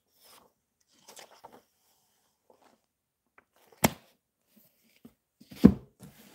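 Pages of an old hardback book rustling as they are leafed through, then a sharp clap as the book is shut just before four seconds in, and a louder, duller thump near the end as it is laid down on a wooden table.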